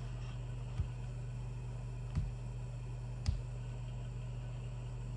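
Quiet room tone with a steady low hum, broken by three soft knocks about a second apart.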